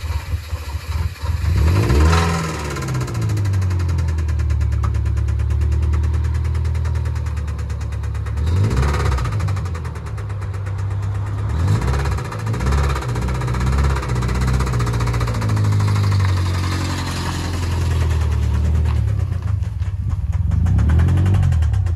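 Subaru EL15 1.5-litre flat-four engine running and revved up a few times, with a heavy knock through the running that the owners take for rod knock.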